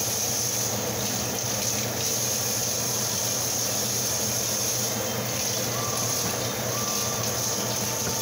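Water running steadily from a kitchen faucet while peeled potatoes are rinsed under it.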